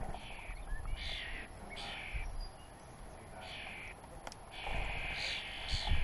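Small songbirds chirping and twittering in short high-pitched bursts of about half a second, several times, with a longer run of twittering near the end.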